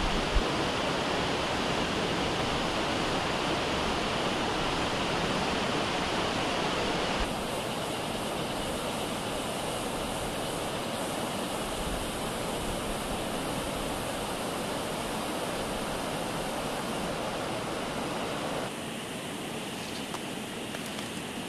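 Steady rushing of a mountain river, an unbroken even noise. It drops a little in level twice, about seven seconds in and again near the end.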